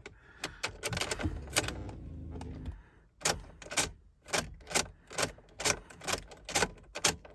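Ignition key being turned back and forth between off and run in a 2014 Lincoln Navigator's ignition switch, with sharp clicks and the keyring jangling; from about three seconds in the clicks come evenly, about two a second. This is the rapid ignition cycling that puts the vehicle into remote-programming mode. A low steady hum runs from about one to nearly three seconds in.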